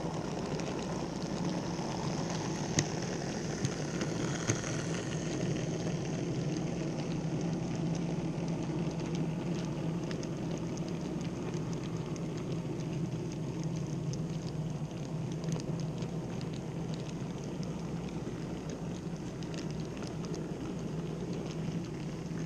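N-scale model freight train, double-headed by two Minitrix V160 diesel locomotives, rolling past close by: a steady rolling rattle of wheels on the rails over a low hum, with a few sharp clicks about three to five seconds in.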